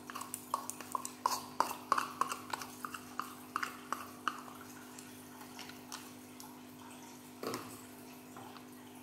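A spoon tapping and scraping inside a plastic cup, knocking grated cheese out into a plate. It makes a quick run of light clicks that thins out after about four seconds, with one duller knock near the end.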